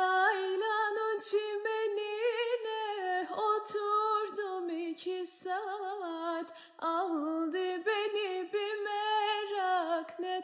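One voice singing unaccompanied: a slow melody with wavering, ornamented pitch on long held notes, broken by short pauses.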